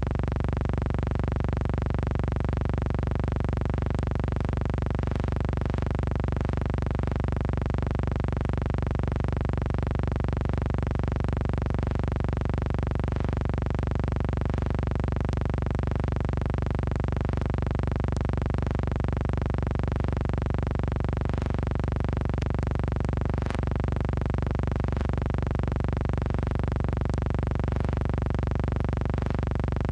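Background music: a steady synthesizer drone that holds the same chord without change.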